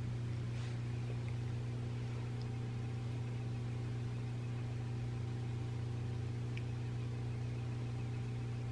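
Steady low electrical hum with a faint hiss, unchanging throughout, with a couple of faint light ticks.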